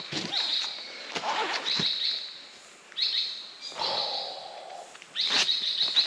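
Rainforest birds calling: short high chirps in repeated bursts, with a lower held whistling note about four seconds in.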